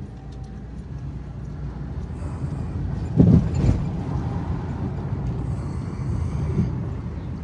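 A pickup truck's engine and road rumble heard from inside the cab while driving, growing gradually louder. There is a louder thump about three seconds in.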